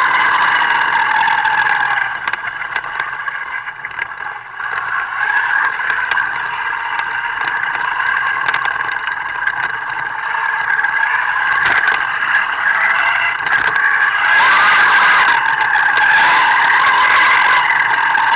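Thunder Tiger 1/8-scale RC buggy's motor whining at high revs, its pitch wavering as the throttle changes, with tyres skidding over loose sandy dirt. It eases off and drops in loudness between about two and five seconds in, and comes back louder and fuller about fourteen seconds in.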